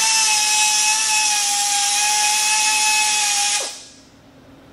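Handheld cut-off wheel grinding through steel on the car's rear suspension: a loud, steady high whine with a hiss. About three and a half seconds in it is let off and the whine drops away quickly.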